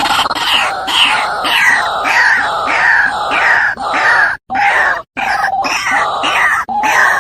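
White-breasted waterhen (ruak-ruak) calling: a rapid series of harsh, repeated calls falling in pitch, about two a second, with two brief breaks near the middle. This is the bird's lure call used to attract waterhens.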